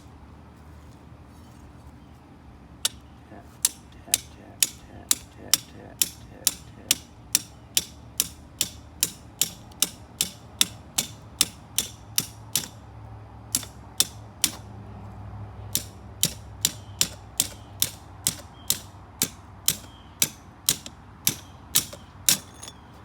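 Hand hammer striking hot steel on an anvil: a steady run of sharp ringing blows, about two a second, pausing briefly twice partway through.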